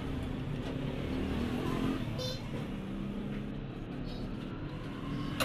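Steady background rumble and hiss with faint voices.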